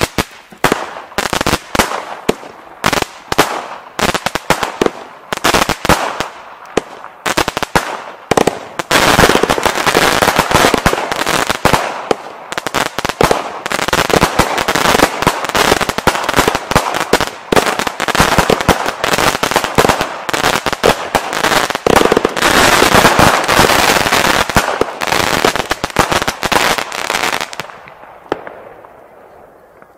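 A Weco Fright Night 49-shot, 14 mm consumer firework battery firing: a fast string of launches and bursts that thickens into near-continuous crackling and bangs from about nine seconds in. It dies away shortly before the end.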